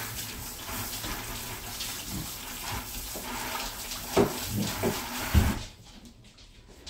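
Kitchen tap running into a sink as sticky dough is rinsed off hands, with a couple of knocks near the end. The water cuts off suddenly about five and a half seconds in.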